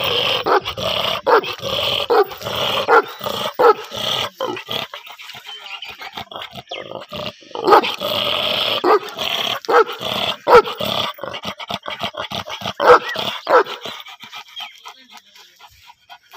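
Large Bully Kutta-type dog barking in quick runs of loud barks, one to two a second. There is a lull about five seconds in, a second run of barks, and the barking dies away near the end.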